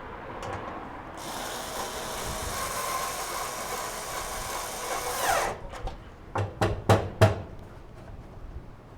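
Cordless drill/driver running for about four seconds, driving a screw, then winding down with a falling pitch as the trigger is released. Four sharp knocks follow in quick succession.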